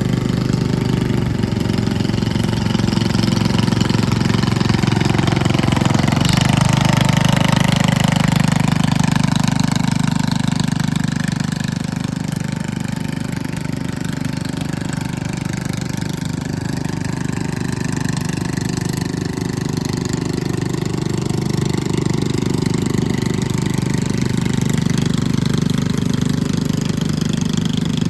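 Small lawn mower engine running steadily. It grows somewhat fainter about halfway through, then louder again.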